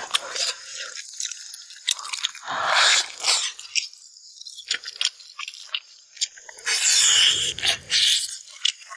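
A person chewing and gnawing on spicy braised beef spine, in close-up: irregular wet smacks and crunches, with louder bursts about three seconds in and again near the end.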